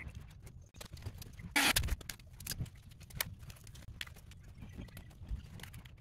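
Hands handling heavy red battery cables and corrugated plastic conduit against a battery pack: scattered light clicks and knocks, with a short louder scraping rustle about one and a half seconds in.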